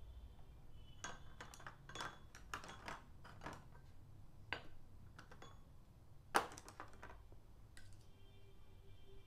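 Irregular light clicks and taps of a paintbrush working against a palette and paint pots, with one sharper knock about six seconds in.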